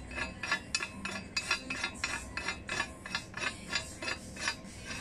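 Steel nuts clinking against metal as they are handled: a steady run of light metallic clicks, about four a second.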